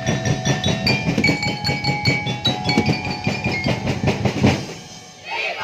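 Street-dance percussion band playing a fast, dense drumbeat with ringing, bell-like high notes over it. The beat thins out near the end and shrill, wavering high sounds come in.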